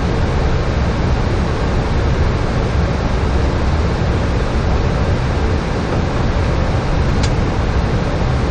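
Steady low rushing noise of air and engines on a Boeing 737-800 flight deck in flight, with one light click near the end.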